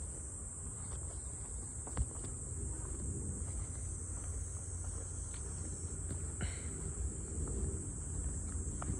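Steady, high-pitched insect chorus droning without a break over a low rumble, with a few faint clicks.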